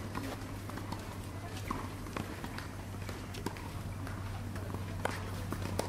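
Outdoor clay tennis court ambience: a steady low hum with scattered, irregular faint knocks and taps.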